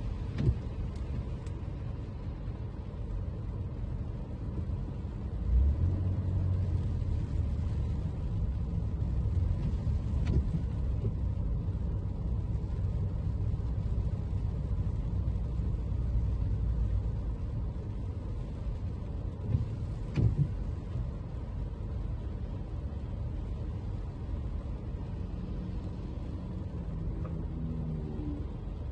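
Toyota Camry driving on rain-wet city streets: a steady low rumble of tyre and engine noise. It grows deeper and louder from about five seconds in until about halfway, and there are three short knocks about ten seconds apart.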